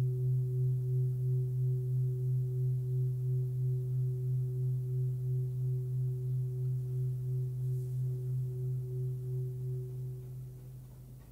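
A 26.5 cm Full Moon singing bowl rings on with a deep fundamental near 130 Hz, between B and C, and a fainter higher overtone. Its sound wavers slowly and evenly in loudness. Near the end it dies away as a hand touches the bowl.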